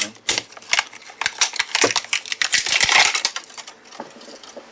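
Heat-shrunk plastic strapping being pulled and peeled off a pack of cardboard-wrapped NiCd cells: a run of crackles and crinkles, densest about three seconds in, then dying away.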